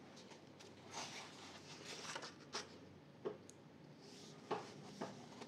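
Faint rustle of a paper coloring-book page being turned and pressed flat by hand, with a few short soft taps.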